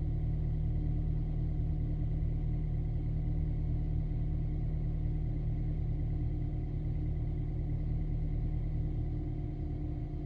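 BMW N43 four-cylinder petrol engine idling steadily at its raised cold-start revs, running smoothly with no injector misfire.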